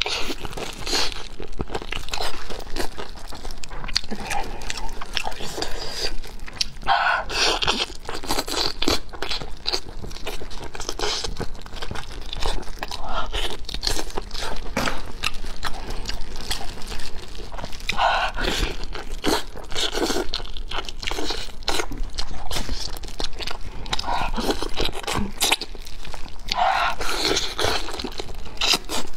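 A person biting and chewing braised pig's trotters: a continuous run of wet mouth clicks and smacks.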